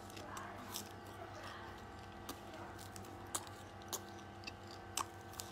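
Quiet chewing of a crunchy fried snack: a few soft, crisp clicks as it is bitten and chewed, over a faint steady hum.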